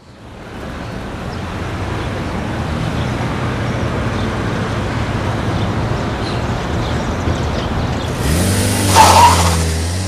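Road traffic noise fading in to a steady hum. About eight seconds in, a vehicle's engine comes up close with a rising pitch and passes, the loudest moment, then fades.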